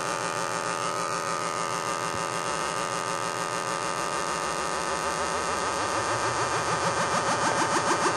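Homemade electronic tone generator sounding through a loudspeaker: a buzzy tone with many overtones whose pitch sweeps up and down several times a second, a low-frequency sine oscillator wobbling the frequency of a second oscillator. The wobble grows louder and more pulsing near the end as the knobs are turned.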